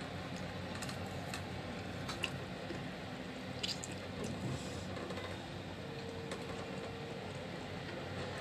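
A person eating chicken noodles: soft chewing and slurping, with a few light clicks of a metal fork and porcelain spoon against the bowl, over a steady low background hum.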